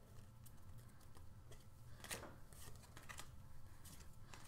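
Faint ticks and rustles of Donruss basketball trading cards being slid off a stack and flipped, one card every second or so, the clearest about two seconds in.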